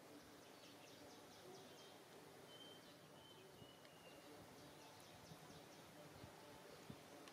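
Near silence: faint outdoor ambience with runs of faint high chirps and a few short, thin whistled notes.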